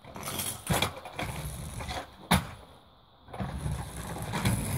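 Kick scooter wheels rolling on asphalt, with two sharp knocks in the first half. The rolling dies away about halfway through, then comes back and grows louder near the end.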